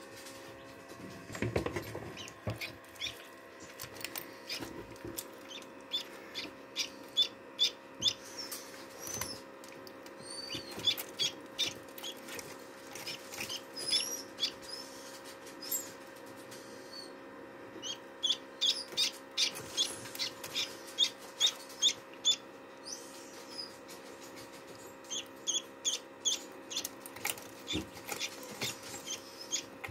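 Newly hatched duckling peeping: short, high cheeps in runs of several at a time, with pauses between the runs. A steady hum from the running incubator lies underneath.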